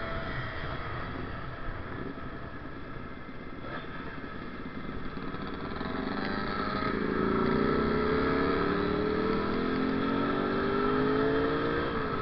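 Kawasaki Ninja RR single-cylinder two-stroke engine accelerating, its note climbing steadily through a gear over the second half. It drops suddenly at a gear change near the end, over steady wind rush.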